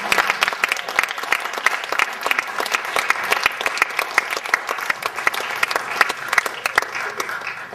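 Audience applauding, dense clapping that thins out and dies away near the end.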